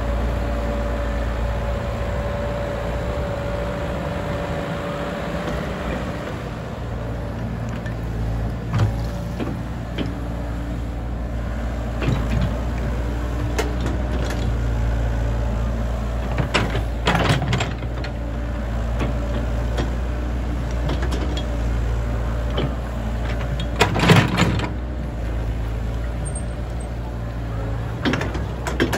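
Komatsu PC78US hydraulic excavator's diesel engine running steadily under working load, with a thin whine over the first six seconds as the upper body swings. Several sharp clanks and knocks come as the bucket works through rubble, the loudest about 24 seconds in.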